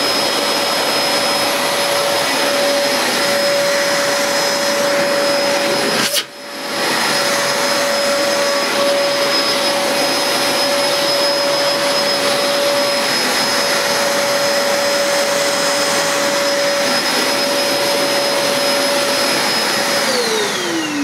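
Princess Jet Vac floating bagless cylinder vacuum cleaner running with its hose off, a steady motor whine. There is a click and a brief drop in level about six seconds in before it picks up again. Near the end it is switched off and the whine falls in pitch as the motor runs down.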